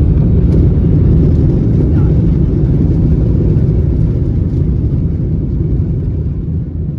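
Steady low rumble inside the cabin of an Airbus A321-200 airliner, the noise of the aircraft under way, easing a little toward the end.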